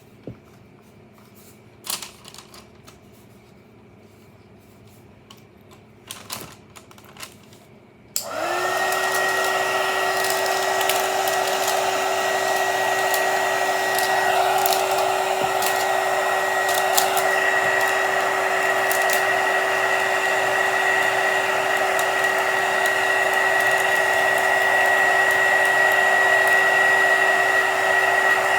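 A few light handling clicks, then about eight seconds in a heat gun switches on. Its motor spins up to a steady whine over a rush of blowing air, which runs on unbroken as it shrinks plastic shrink wrap onto a tumbler blank.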